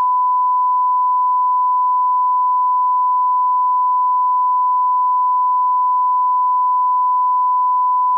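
1 kHz line-up reference tone accompanying SMPTE colour bars on a commercial's tape leader: one steady, unbroken pure beep at a constant level, the audio calibration signal before programme starts.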